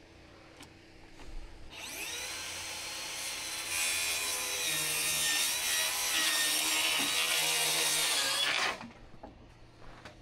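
Circular saw crosscutting a wooden I-joist. It starts about two seconds in and gets louder as the blade bites into the wood a couple of seconds later. It runs steadily with a whine over the cutting noise, then stops abruptly near the end.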